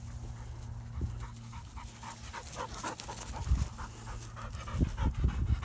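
A Braque Français pointing dog panting with its mouth open, winded from running field drills.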